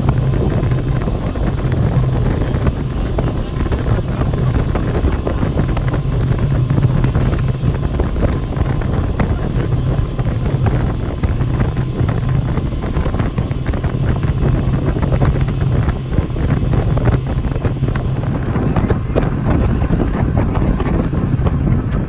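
Wind buffeting the microphone over a steady, low engine rumble, unchanging throughout.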